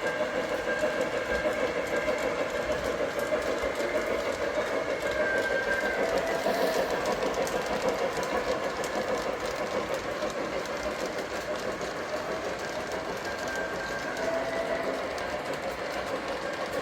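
O-gauge Lionel Legacy 2-8-0 model steam locomotive running around the track layout: a steady rolling run with fine, rapid clicking.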